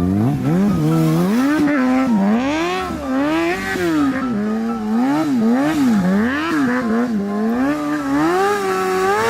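Engine-revving sound, its pitch sweeping up and down over and over, about twice a second, then held steadier near the end.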